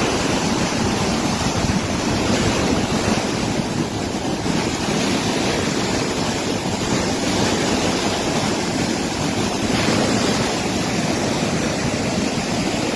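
The Kosi River in flood, its high water rushing with a steady, loud rush of noise. The river is carrying a discharge of hundreds of thousands of cusecs.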